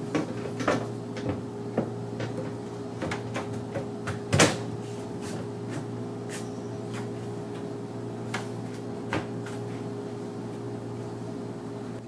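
Side panel of a computer tower case being fitted back on: scattered clicks and light knocks as it is lined up and pressed into place, the loudest knock about four seconds in, over a steady low hum.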